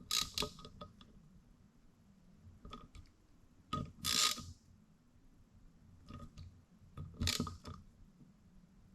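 Metal steering-rack parts being handled and worked by hand on a bench: short clusters of metallic clicks and clinks, with a brief scraping rush about four seconds in.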